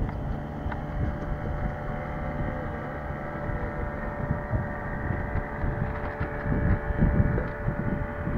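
Wind buffeting the microphone in uneven gusts, strongest about six to seven seconds in, over a steady low hum.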